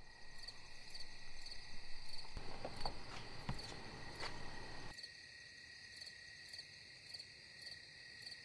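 Crickets chirping at night in a steady, pulsing high-pitched chorus, with a few faint clicks in the first half. A low background rumble drops away about halfway through.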